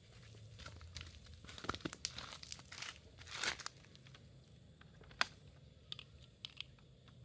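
Scuffing and crinkling handling noise, then one sharp click and a few light knocks as the loose front wheel of a WPL D12 RC pickup drops off and bounces on concrete.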